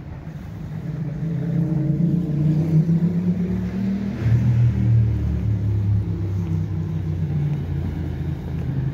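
A motor vehicle's engine running close by, its pitch climbing over the first few seconds and then dropping lower about four seconds in, as when a car accelerates and changes gear.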